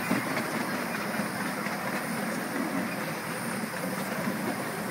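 Miniature 7¼-inch gauge steam train running along the track: a steady rolling noise of the locomotive and passenger cars on the rails.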